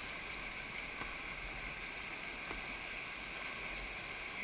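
Steady rushing of a class 3–4 whitewater rapid, with no change in level.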